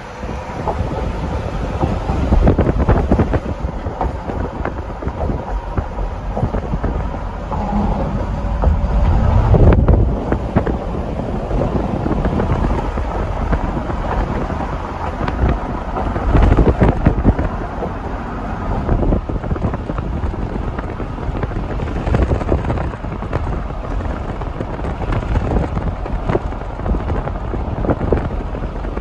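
Wind buffeting the microphone: loud, uneven low rumbling gusts, surging hardest about ten seconds in and again at about seventeen seconds.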